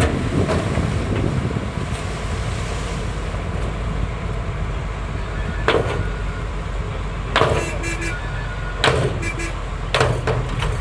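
Heavy diesel earthmoving machine running steadily under load with a low rumble. Four sharp metallic clanks or squeals break in about 6, 7.5, 9 and 10 seconds in.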